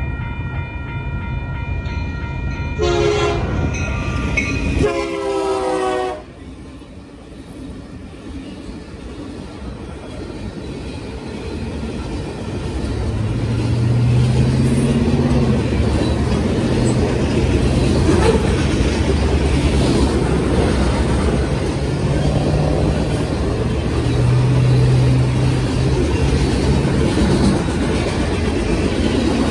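Freight locomotive horn blowing in the first several seconds and stopping about six seconds in. Then a freight train rolls through the crossing with a loud steady rumble and wheel clatter on the rails, building from about twelve seconds in.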